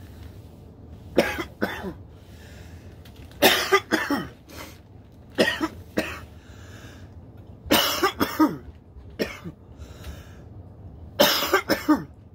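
A man coughing hard in repeated fits of two or three coughs at a time, about every two seconds, after inhaling cannabis wax smoke.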